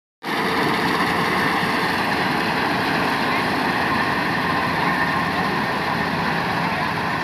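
Combine harvester running steadily: a dense, even machine drone with faint steady whines through it.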